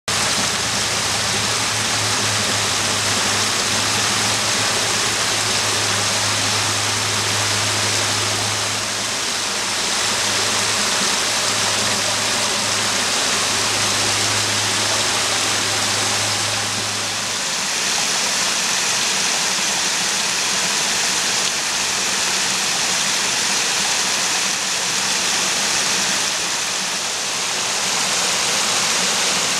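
A small woodland stream running over low rock ledges in shallow cascades: a steady rush and splash of falling water. A low steady hum sits underneath for a little over half the time, then stops.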